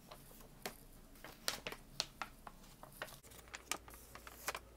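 Paper rustling and crinkling in short, irregular crackles as a booklet's pages are flipped and a folded, glossy paper sheet is unfolded.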